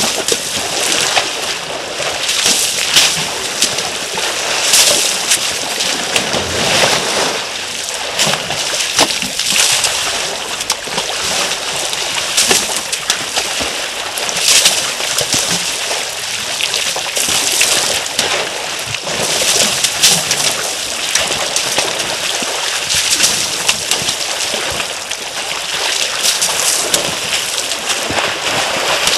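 African elephants wading and splashing in a shallow waterhole: continuous sloshing and splashing of water, with frequent louder splashes.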